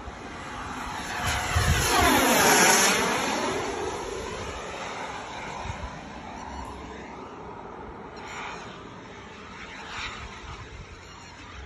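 Radio-controlled model jet with a K210 turbine making a fast pass: a rushing whine swells, is loudest about two and a half seconds in, drops in pitch as it goes by, then fades to a faint distant hum.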